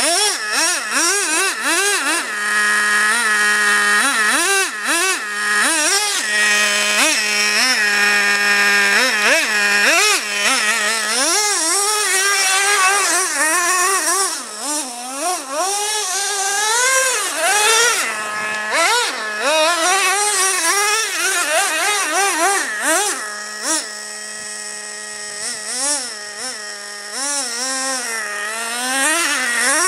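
Traxxas Revo RC monster truck's 2.5 cc nitro two-stroke engine revving up and down over and over as the truck is driven, its pitch rising and falling with the throttle.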